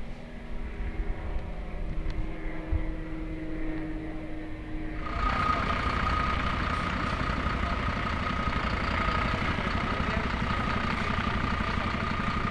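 Low engine rumble, then from about five seconds in a louder, steady engine noise of parked emergency vehicles idling, with a steady high whine over it.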